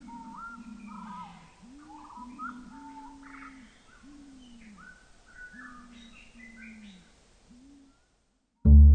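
Birds calling: a run of low, repeated, arching calls under higher, quicker chirps, fading out after about eight seconds. Near the end, music with bowed low strings comes in loudly.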